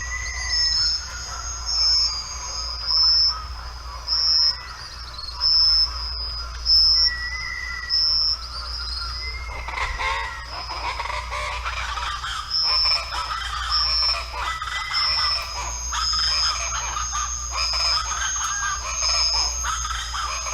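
Mangrove swamp wildlife chorus: a short high call repeats about once a second over a steady high whine. About halfway through, a busy chatter of many bird calls joins in.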